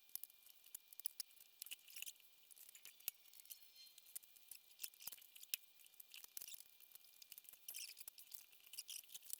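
Faint, irregular clicks and scrapes of tire irons working a motorcycle tire's bead over the rim, with many small metal-on-metal ticks scattered throughout.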